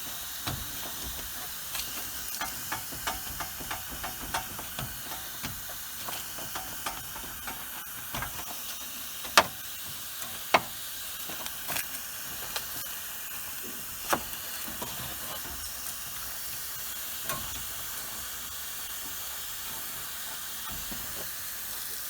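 Steady hiss of refrigerant escaping from a leaking connection on a Carrier heat pump's outdoor coil, with scattered small clicks and a few sharper knocks around the middle, the two loudest about a second apart.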